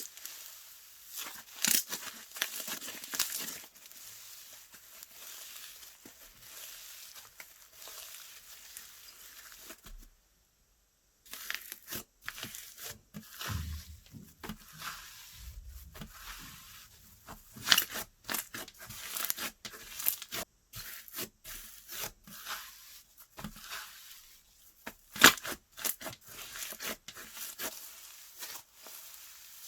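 Slime being handled: a run of irregular sticky crackles, pops and clicks as it is stretched, folded and pressed. The sound drops out completely for about a second, roughly ten seconds in.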